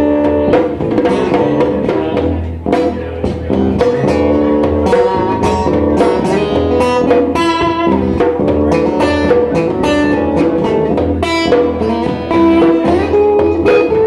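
Live acoustic band playing a rock song: strummed acoustic guitars with a djembe-style hand drum keeping a steady rhythm, and a saxophone.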